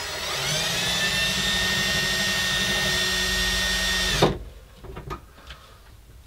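Power drill boring a hole: the motor winds up in pitch, runs steadily, then stops abruptly about four seconds in with a knock, followed by a few faint clicks.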